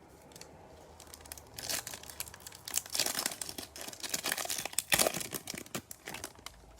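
Foil wrapper of a Bowman Chrome baseball card pack being torn open and crinkled: a dense run of crackles that builds about a second and a half in and dies down near the end.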